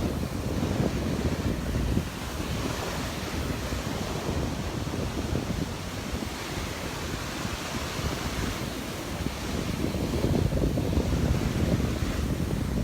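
Gulf of Mexico surf washing onto the beach, with wind buffeting the microphone; the rush swells again shortly before the end.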